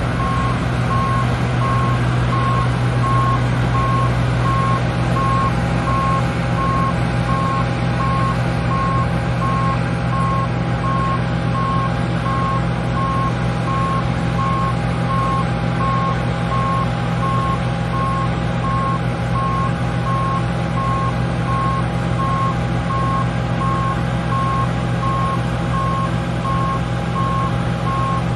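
Harvest machinery engine running steadily, with an electronic warning beeper sounding at a regular, even pace throughout, like a reversing alarm.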